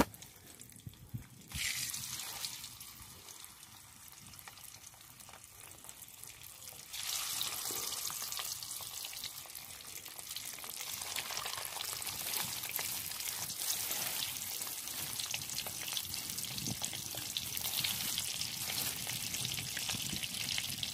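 Peeled hard-boiled eggs frying in well-heated oil in an iron wok, with a steady sizzle. The sizzle starts about a second and a half in and gets clearly louder about seven seconds in, as more eggs go into the oil.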